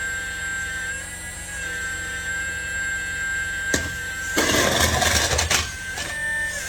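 Small electric motor whining steadily, its pitch shifting slightly a few times, with a click and then a louder, rougher stretch of noise in the middle.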